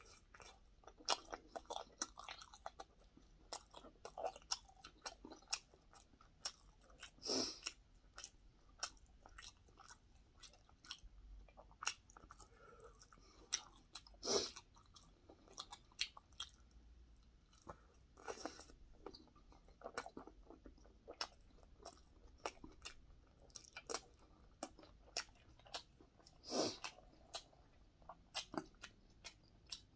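A man chewing breaded fried pork cutlet close to the microphone: irregular crunches and wet mouth clicks, with a few louder bites spread through.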